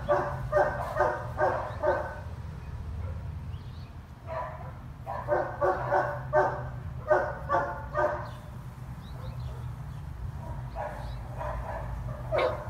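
A dog barking in runs of quick barks, about two a second, pausing twice for a couple of seconds between runs.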